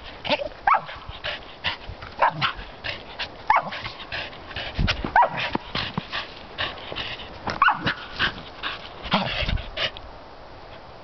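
A dog barking and yipping in short, sharp calls roughly once a second, stopping near the end.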